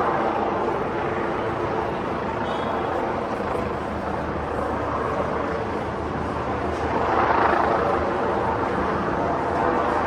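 Busy city street ambience: a steady wash of traffic noise with voices mixed in. A vehicle swells louder as it passes about seven seconds in.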